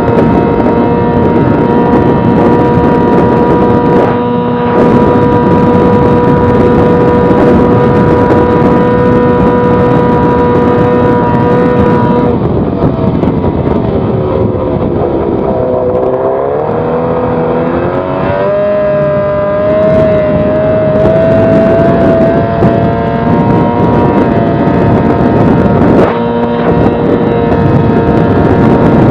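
Yamaha 20 hp outboard motor on a small racing boat running at full throttle with a steady high whine. About halfway through, the pitch sags and wavers as the boat slows through a turn, then climbs back up and holds steady.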